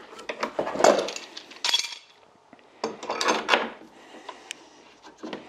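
Wooden corner squares being set into a box corner and fastened with small clamps: a string of knocks, clicks and scrapes of wood and clamp parts.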